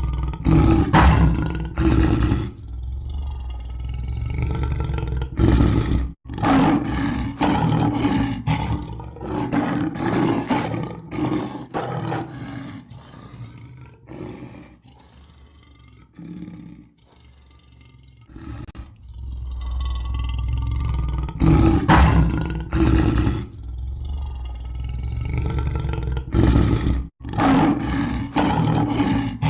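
Lion roaring repeatedly, deep drawn-out roars over a low rumble. The roars ease off to quieter sounds in the middle before loud roaring resumes.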